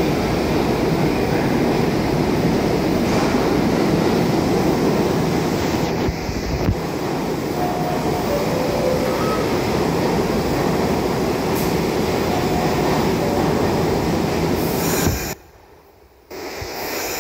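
R68 subway train running slowly along the station platform: a steady, loud rumble of wheels and cars on the rails, with a few faint wheel squeals. The sound cuts out almost completely for about a second near the end, then picks up again.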